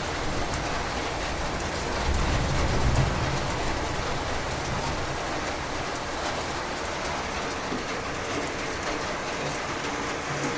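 Steady rain pouring down during a thunderstorm. About two seconds in, a low rumble swells for about a second.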